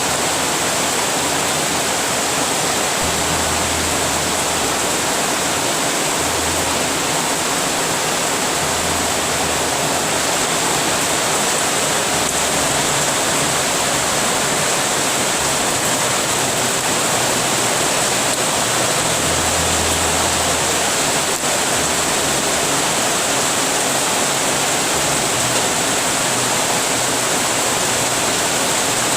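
Heavy rain falling in a steady, dense hiss, with a low rumble coming and going a few times.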